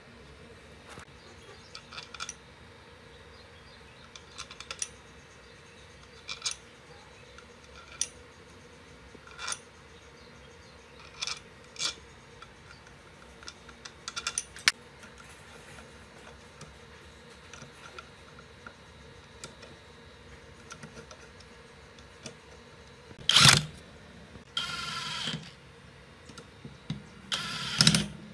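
Scattered light clicks and clinks of metal screws and a plastic pump housing being handled, then a Makita cordless driver runs in three short bursts near the end, driving screws into the housing.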